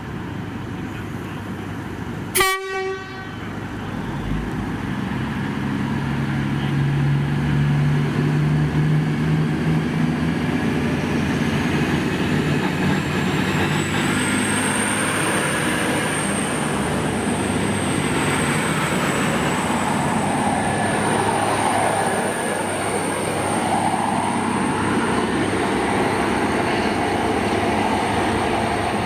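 V/Line diesel passenger train giving a short horn toot, then running through the station loud and steady with its engine note. About halfway through, a high metallic squeal rises in pitch and then holds.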